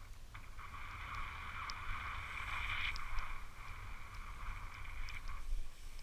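Skis sliding over snow: a hissing scrape that starts about half a second in and stops shortly before the end, over a steady low rumble of wind on the microphone.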